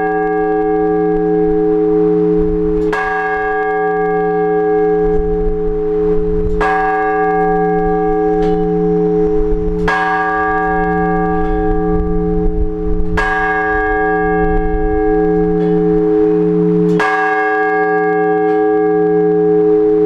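Single large Orthodox church bell struck in slow, even strokes about every three and a half seconds, five times, each stroke ringing on into the next: the blagovest that calls the faithful to the all-night vigil.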